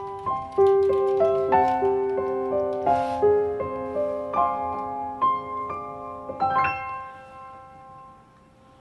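Background piano music: a melody of single notes over held chords, ending on a final chord about six and a half seconds in that rings out and fades away.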